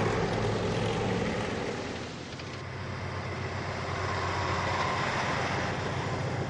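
Military truck engines running as a convoy drives past: a steady drone with a low hum that dips briefly about two seconds in, then builds again.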